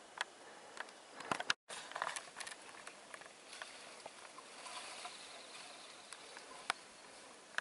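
Scattered crackles and snaps of twigs and dry brush with footsteps in crusty snow, a close cluster of them just before a brief gap about a second and a half in.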